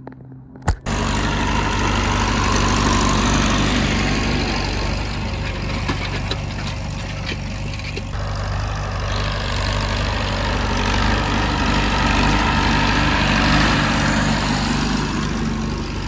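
A sharp knock, then an antique Farmall tractor's engine running steadily and loud from about a second in.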